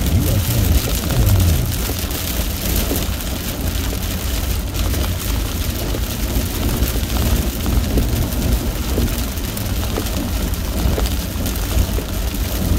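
Heavy rain beating on a car's windshield and roof, heard from inside the moving car, over the low rumble of tyres on the wet road.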